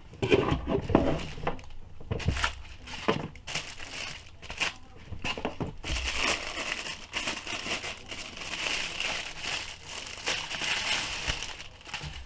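Packing foam rubbing and a thin plastic bag crinkling as a computer disc drive is unpacked: an irregular run of rustles and crinkles, denser and higher in the second half.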